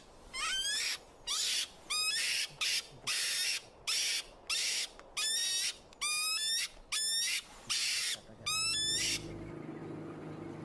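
European mink screeching and hissing in protest while being handled: about a dozen short, sharp calls in quick irregular succession, some a rising squeal and some a spitting hiss. The calls stop about nine seconds in.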